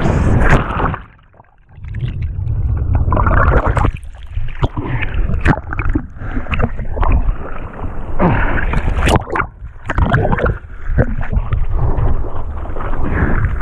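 Surfer paddling on a surfboard: hands and arms splashing into the sea with each stroke and water sloshing and washing over an action camera held at water level, in a run of short irregular splashes. It drops away for a moment about a second in.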